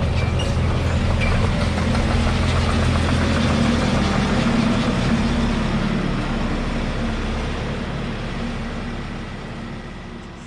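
A vehicle engine running steadily, fading away over the last few seconds.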